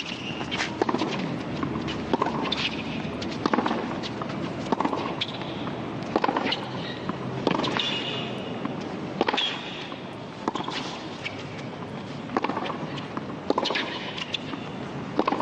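Tennis rally on a hard court: tennis ball struck by racquets and bouncing about once a second, with short high squeaks from the players' shoes on the court.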